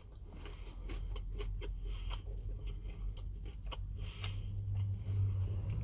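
A person chewing a mouthful of Chicken McNugget dipped in sauce: a string of small wet clicks and soft crunches close to the microphone.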